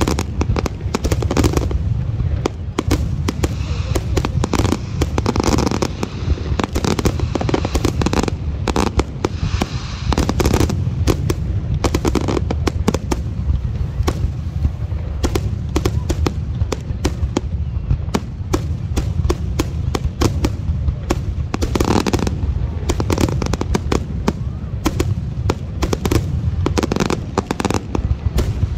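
Aerial fireworks display: shells bursting in a continuous barrage of bangs, several a second, with no let-up.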